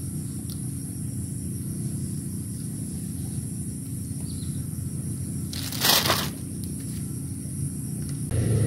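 Steady low outdoor rumble, with one short rustle or crunch about six seconds in. Near the end a louder low motor hum sets in.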